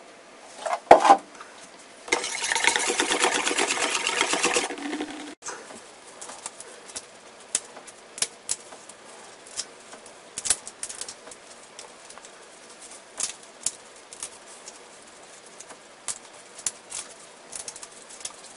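Batter being mixed in a stainless-steel bowl for a few seconds after milk is poured in, dense rapid scraping that stops abruptly about five seconds in. Then raw king prawns being shelled by gloved fingers: scattered sharp clicks and crackles of shell breaking and peeling.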